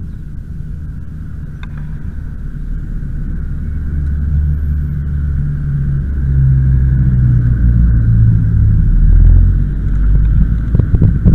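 Steady low rumble of wind and tyre-on-tarmac noise on a bicycle-mounted camera's microphone while riding, gradually getting louder.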